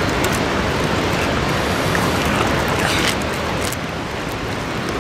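Steady rushing of a nearby river, a loud even wash of noise.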